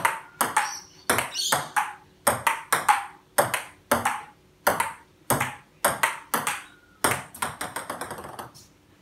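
Table tennis rally: the plastic ball clicking sharply off the paddles and off a table tennis top laid over a dining table, about one hit every half second, with a quick run of fading taps about seven seconds in.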